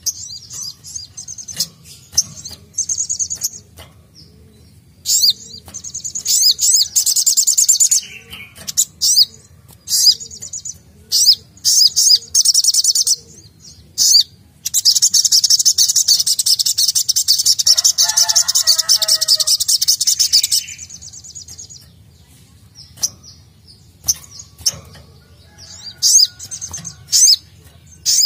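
Sogok ontong (sogon) singing: high, rapid chattering trills in short bursts, then one long unbroken trill of about six seconds from about halfway through, with a few lower notes near its end.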